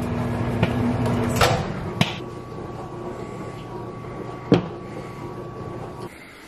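Handling noise as a camera is moved and set down: a few sharp knocks and clunks, the clearest about one and a half, two and four and a half seconds in, over a low steady hum.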